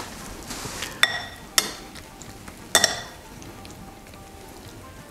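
Stainless steel ladle clinking against a glass bowl while stew is ladled in: three sharp, ringing clinks in the first three seconds.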